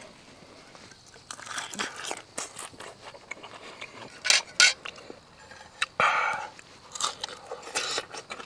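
Close-up crunching and chewing of a cooked soft-shell crawfish, the crisp shell cracking in irregular crunches, with two sharper crunches about four and a half seconds in.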